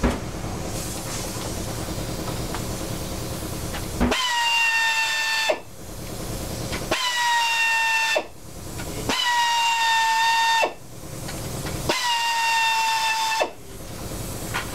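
Handheld pneumatic air tool backing out oiled-up screws on the intake side of an Evinrude V-6 outboard. A steady hiss for about four seconds, then four runs of a high whine, each about a second and a half, with short pauses between.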